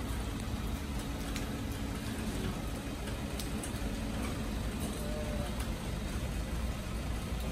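Street-market ambience: a steady hum of traffic, with a few light clicks.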